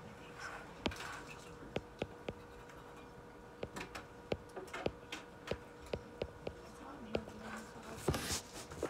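Quiet room tone with a faint steady hum and scattered light ticks and taps, irregular and sometimes several a second.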